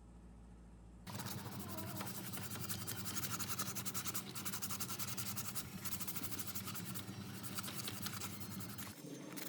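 Rapid abrasive scraping and rubbing, consistent with rust being worked off the old fan's metal parts. It starts suddenly about a second in and changes near the end.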